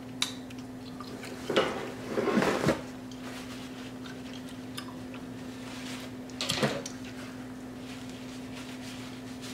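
Close-miked eating sounds: chewing and mouth noises with a few light clicks and short louder bursts around two seconds in and again near six and a half seconds, over a steady faint hum.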